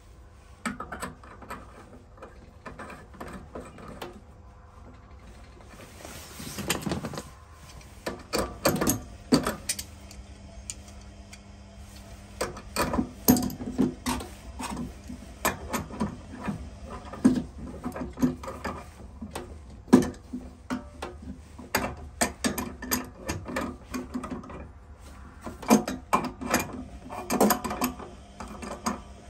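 Hand tools and metal plumbing fittings being worked under a sink: irregular sharp clicks and knocks, a few louder than the rest.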